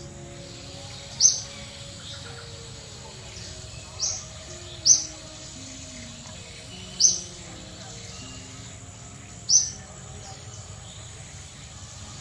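A bird gives short, high chirps five times, one to three seconds apart, loud over a steady outdoor background. Soft, slow music-like tones run faintly underneath.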